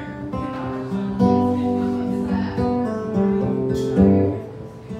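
Acoustic guitar played solo in an instrumental break of a song, strummed chords ringing one after another, quietening near the end.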